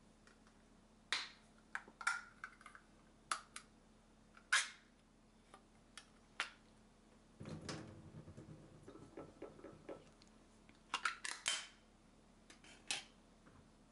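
Scattered sharp clicks and metallic clinks from handling a tin of tuna and utensils on a stainless steel counter. A short stretch of rustling comes about halfway through, and a quick run of clicks near the end.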